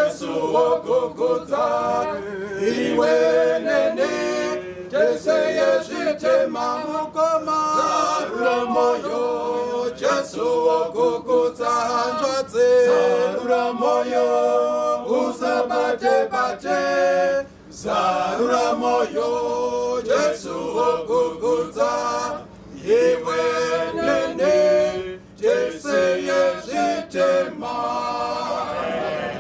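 A group of men's voices singing a hymn together without instruments, in sung phrases with brief pauses between lines.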